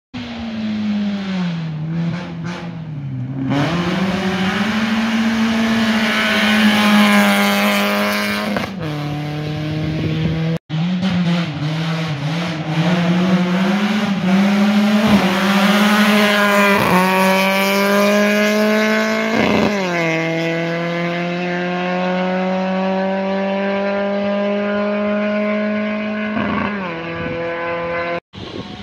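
Rally car engines revving hard at speed on a dirt stage, the pitch dropping as a car slows into a corner, then climbing again and again through gear changes. The sound breaks off sharply twice where clips are joined.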